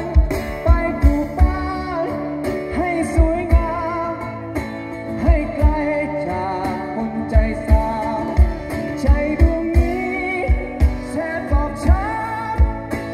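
Live acoustic band music with singing: acoustic guitars and a drum kit, the kick drum thumping a steady beat under a wavering melody line.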